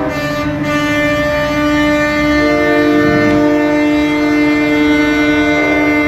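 Air horns on parading semi trucks blowing a long, held chord of several notes, with a low note joining about a second and a half in and another a second later.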